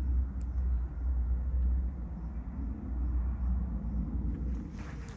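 Low, uneven rumble of wind buffeting the microphone, dying away near the end as footsteps on a dirt path begin.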